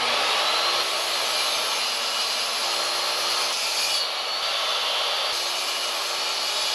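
Portable jobsite table saw running steadily at a constant whine while ripping a long mahogany board into a strip about 1¼ inches wide.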